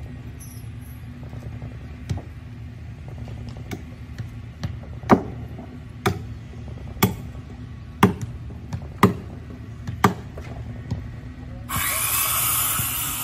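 Hammer blows on the hull of a wooden fishing boat, about one a second for several seconds, over a steady low hum. Near the end a power tool starts up suddenly and loudly with a whine.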